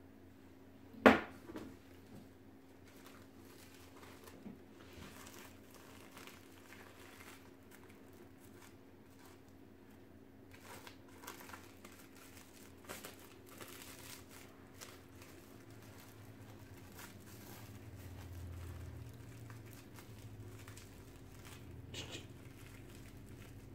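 Faint crinkling and rustling of a dog-coat wrap being folded and handled, with a single sharp click about a second in.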